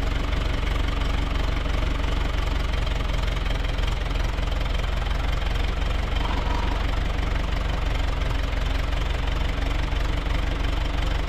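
Engine of a farm machine or vehicle running steadily at a constant speed, with a deep, unchanging hum.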